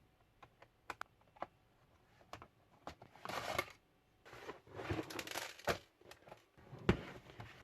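Screws being taken out of a laptop's plastic back cover with a small screwdriver: scattered light clicks, two short scraping rustles, and a sharper click near the end.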